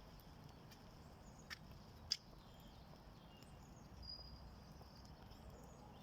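Quiet outdoor ambience: a low steady rumble with a few faint, short bird chirps. Two sharp clicks come about one and a half and two seconds in, the second the loudest sound.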